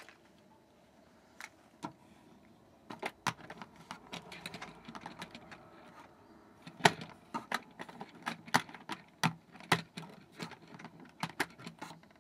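Hornby OO-gauge Mk3 buffet coach being handled and set onto model railway track by hand: irregular sharp plastic clicks and taps of its body and wheels against the rails, the loudest about seven seconds in.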